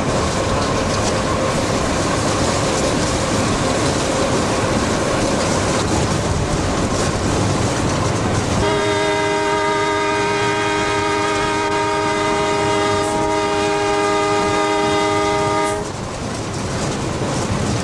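Train running at speed, heard from the locomotive cab as a steady rumble and rattle. About eight and a half seconds in, the locomotive's horn sounds one long blast of about seven seconds at a steady pitch, then cuts off.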